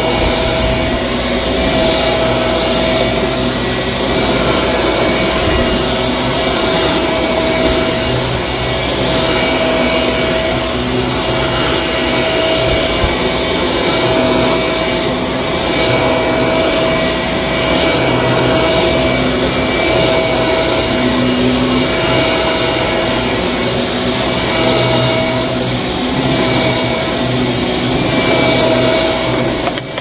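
Shark Navigator upright vacuum cleaner running on carpet: a steady motor whine over the rush of suction.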